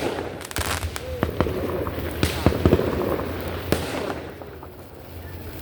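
Fireworks and firecrackers going off: sharp cracks and bangs at irregular intervals, with a quick rattle of cracks about half a second in and single louder bangs later.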